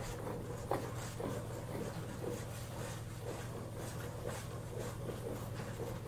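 A goat being hand milked: short squirts of milk into a pail, about two a second, over a steady low hum.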